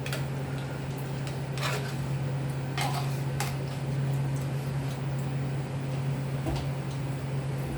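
A spoon knocking against a cooking pan about four times in the first few seconds while curd is mixed into the rice, over a steady low hum.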